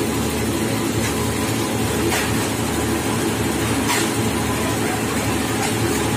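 Steady drone of heavy machinery running, with a few faint knocks about two and four seconds in.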